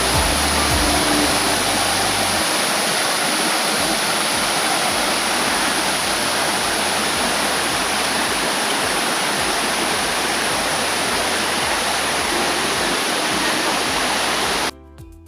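Waterfall on a mountain stream pouring steadily, a loud, even rush of water. Near the end it cuts off suddenly and soft background music takes over.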